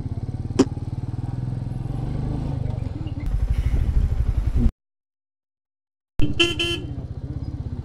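Royal Enfield Meteor 350's single-cylinder engine thumping steadily on the move, with a sharp click about half a second in. The sound cuts out completely for about a second and a half, then a vehicle horn honks briefly in a few quick pulses before the engine thump returns.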